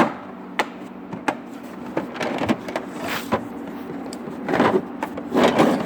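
Tools and cases being handled in a Milwaukee rolling toolbox: a sharp click at the start and a few more knocks, then three longer scraping slides, the loudest near the end.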